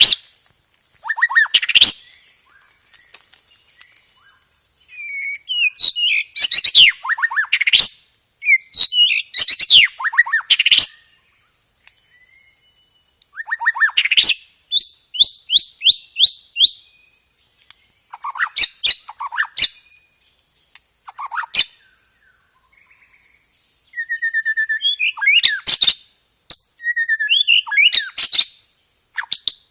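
White-rumped shama (murai batu) singing loudly in phrases a second or two long with short pauses between, full of fast repeated notes and quick falling whistles, over a steady high hiss.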